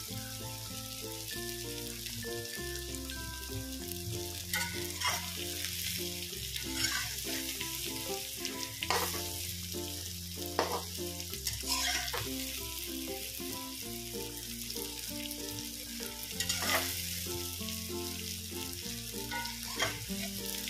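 Flour-and-spice-coated soybean chunks sizzling as they fry in oil in a kadhai, with a spatula scraping through them and turning them at irregular moments.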